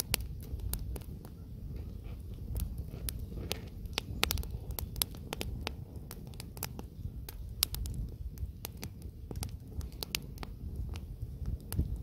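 Wood campfire crackling and popping, with many irregular sharp snaps over a steady low rumble of the burning fire.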